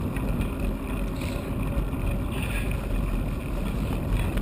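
Steady ride noise of a bicycle rolling along a wet tarmac path: tyre noise and a low rumble of wind on the microphone.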